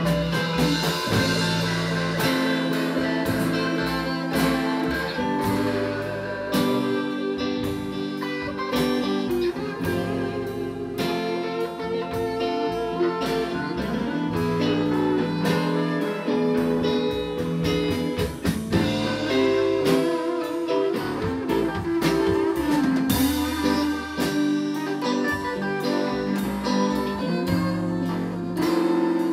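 Live blues band playing an instrumental passage with no singing: plucked guitar over sustained low bass notes, with violin in the group.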